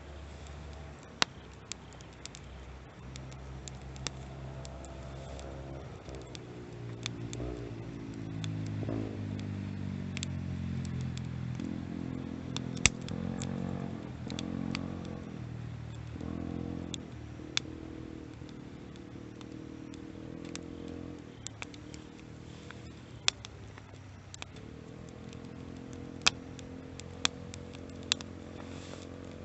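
Wood fire crackling, with sharp pops scattered throughout. A motor vehicle's engine is heard passing nearby, its pitch rising and falling, loudest in the middle.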